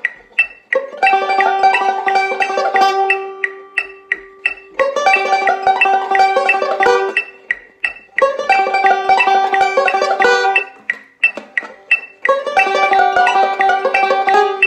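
Five-string resonator banjo picked with fingerpicks: a fast bluegrass roll lick played four times in a row, at rising tempos of 144, 158, 168 and 177. Evenly spaced metronome clicks sound in the short gaps between the runs.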